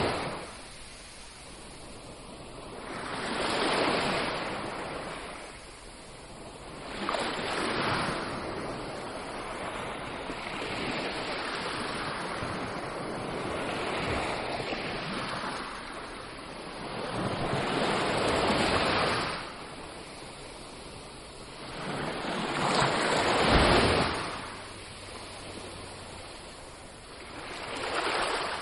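Ocean surf breaking and washing up the shore, rushing surges that swell and fade every few seconds, the loudest about two-thirds of the way in, with a steady wash of water between them.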